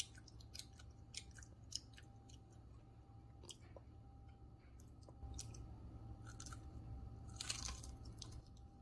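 A toddler chewing and biting crispy fried chicken: faint scattered crunches and small clicks, with one louder crackling crunch near the end.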